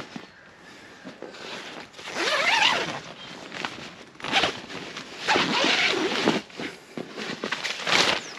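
Tent door zipper being pulled open in several separate strokes.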